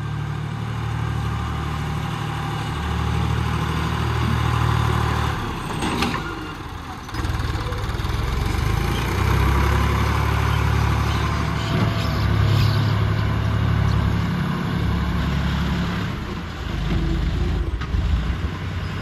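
Farm tractor's diesel engine running under load as the front-loader works the dirt. The engine note drops briefly about six seconds in, then picks up again.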